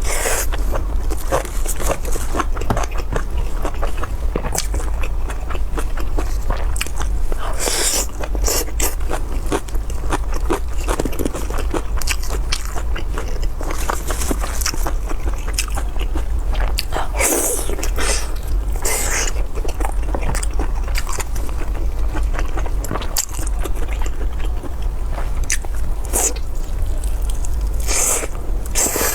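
Close-miked chewing and biting of spicy pork: a steady run of wet clicking mouth sounds, with a few louder crunching or slurping bursts now and then. A steady low hum sits underneath.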